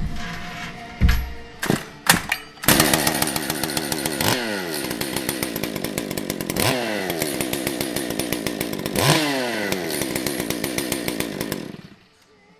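Stihl MS 201 T C-M two-stroke top-handle chainsaw with a freshly modified muffler, run with bar and chain off. It takes a few pulls before it catches about two and a half seconds in, then runs and is revved three times, each rev rising sharply and falling back. It is shut off near the end.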